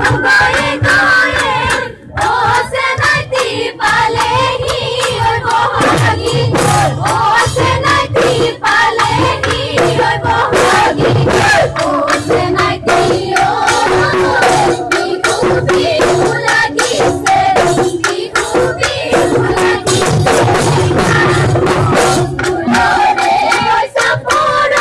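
Live Bihu folk music: dhol drums beating a steady, dense rhythm under singing, with hand claps from the dancers.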